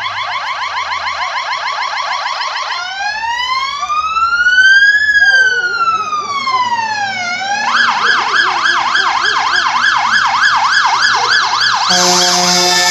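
Electronic siren of a MAN GCBA fire engine on an emergency run, changing tones: first a fast, repeating rising sweep, then one slow rise and fall, then a fast up-and-down warble. A low horn starts sounding near the end as the truck draws close.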